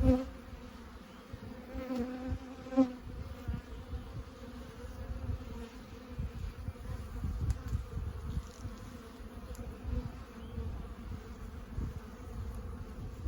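Honeybees buzzing around an opened hive. A few bees fly close past with brief louder buzzes near the start and again about two to three seconds in, over a low rumble. The bees are defensive from working in front of the hive entrance, described as "getting stingy".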